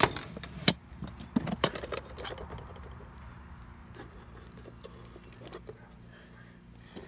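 A few sharp clicks and knocks in the first two seconds, the loudest about a second in, as a box is handled on the dock's decking. After that there is a low steady outdoor background with a steady high drone of insects.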